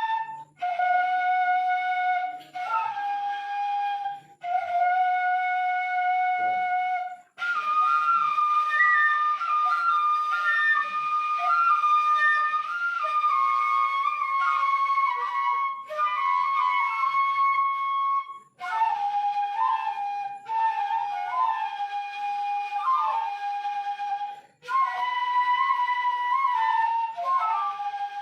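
Seruling emas, traditional bamboo flutes, playing a melody of held notes that step up and down, in phrases broken by short pauses.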